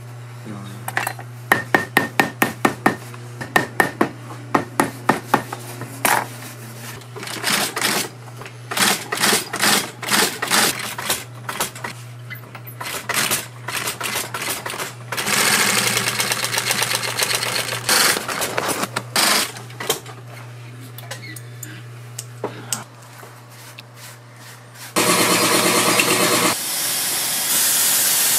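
Industrial post-bed sewing machine stitching a leather boot upper: runs of sharp needle-stroke clacks, evenly about three a second at first, then in irregular spurts, over a steady low motor hum. Near the end a seam-sealing machine starts with a loud, steady hiss.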